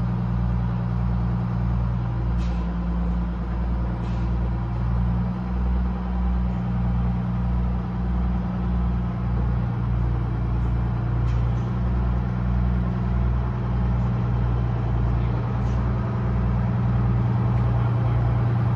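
Truck engine running low and steady, growing slightly louder near the end as the truck comes closer.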